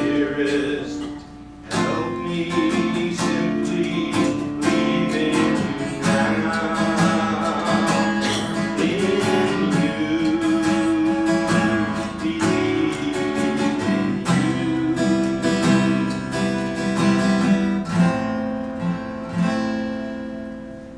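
Acoustic guitar strummed and picked, playing a song, fading out near the end.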